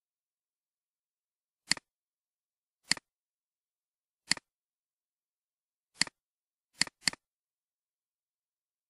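Six sharp clicks at irregular intervals, the last two close together, each a quick press-and-release double tick: a computer mouse being clicked.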